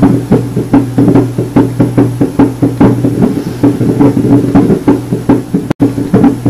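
Newborn puppy's heart heard through a stethoscope: fast, even heartbeats over a steady low hum, cutting out for an instant near the end.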